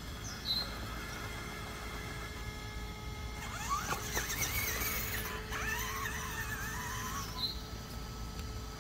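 Whine of an RC rock crawler's Castle 2280kv Slate brushless motor and drivetrain, rising and falling quickly in pitch with the throttle for about four seconds, starting a little before halfway.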